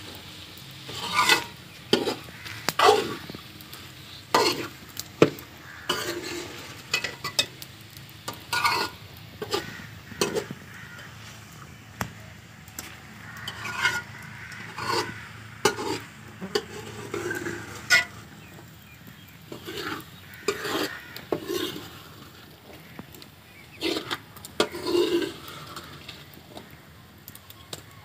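A metal ladle scraping and knocking irregularly against a metal karahi while chopped mustard-green stalks and potatoes are stirred and fried. Under it is a low sizzle, because the vegetables are cooking in their own juices with no water added.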